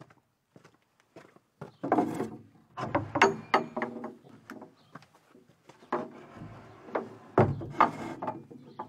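Footsteps on a dirt yard, then a wooden shed door being handled: two spells of knocking, rattling and clattering wood, with a short lull between them.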